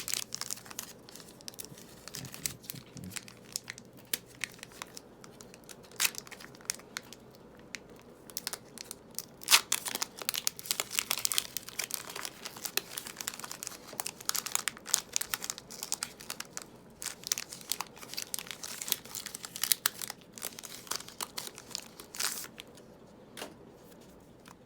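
Foil Pokémon Hidden Fates booster pack crinkling and tearing as it is opened and handled: irregular crackles and rustles.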